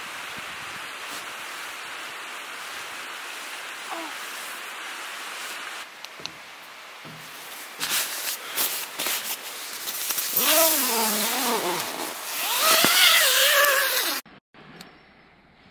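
Steady hiss, then the rustle and handling of down sleeping bags, with two drawn-out wordless vocal sounds that bend up and down near the end. Everything cuts off suddenly just before the end.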